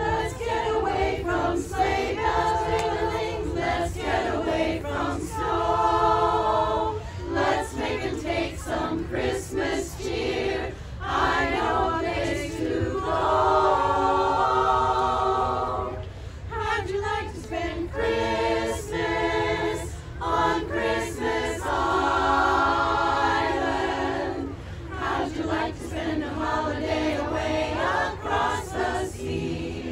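Women's chorus singing a cappella, in sung phrases with short pauses between them.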